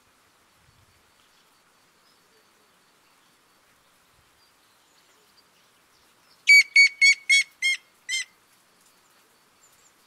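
Grey-headed woodpecker's song: a series of six whistled notes, about six and a half seconds in, that slows, fades and drops slightly in pitch, lasting under two seconds.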